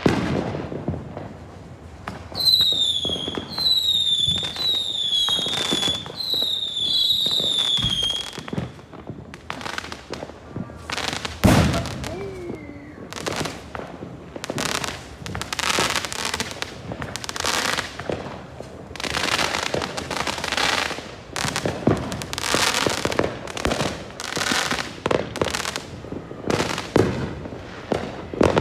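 Many fireworks going off at once: constant bangs and crackling bursts. From about two to eight seconds in, a quick string of whistling fireworks sounds, each a short whistle falling in pitch.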